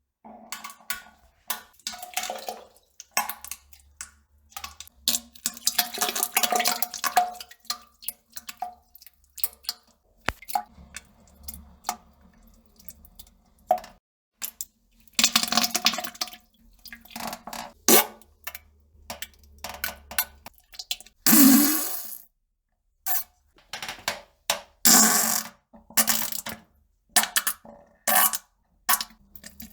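A person on a toilet passing gas and defecating: a string of irregular farts and squelches, some with a low buzzing pitch, along with plops and splashes into the bowl water, separated by short pauses.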